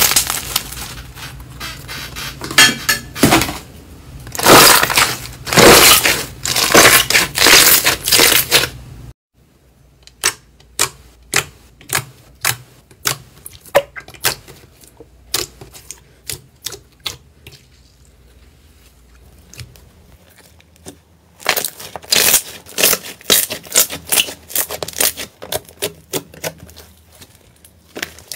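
Hands stretching, pressing and squeezing slime, including a clear slime packed with small beads: bursts of crackling and sticky popping, thinning to separate single pops and clicks for about ten seconds midway before the dense crackling returns.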